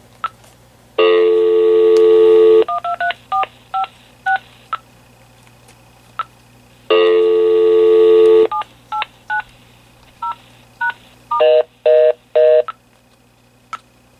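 Keypad of a Vtech 6773 cordless phone handset being pressed button by button, each press giving a short two-tone touch-tone beep, in quick runs. Twice a longer, buzzier tone of about a second and a half cuts in, and three short buzzy beeps come near the end.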